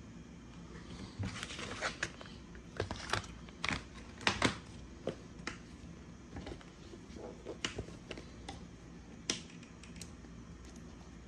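Paper and card packaging handled by hand: irregular rustles, taps and sharp clicks as the instruction leaflet and card inserts of the watch box are moved and set down.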